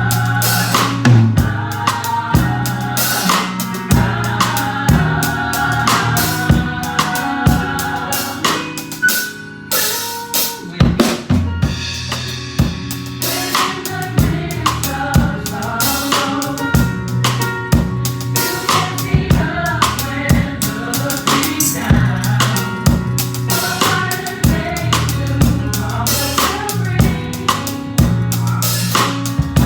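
Drum kit played in a steady groove with kick, snare and rimshots along to an upbeat gospel song. About nine seconds in, the drums briefly drop out, then come back in with a fill.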